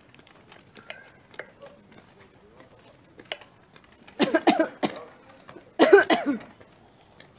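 A woman coughing: a short run of coughs about four seconds in, then a second, louder bout about a second and a half later.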